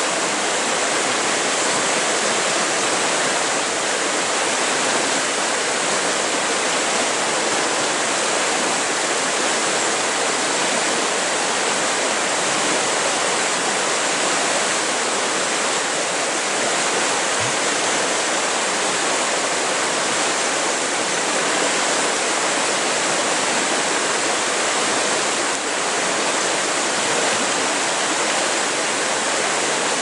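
Fast-flowing river rushing over rocks in shallow rapids, a steady full rush of water with no breaks.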